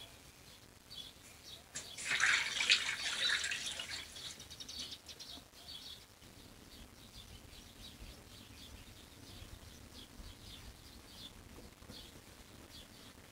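Small birds chirping faintly and repeatedly. About two seconds in, a loud rushing pour lasts about two seconds as something is poured from a jar into a steel bowl.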